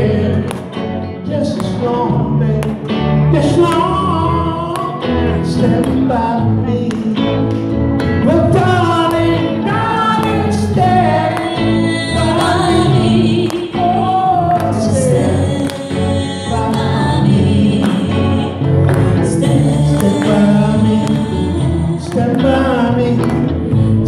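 Live band playing a song, with a man and a woman singing into microphones over electric and acoustic guitars and a cajón keeping the beat.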